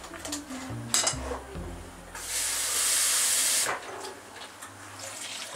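A wire whisk stirring thick batter in a glass bowl, with a sharp knock about a second in, then a steady rush of running tap water for about a second and a half, as water is fetched to thin the batter.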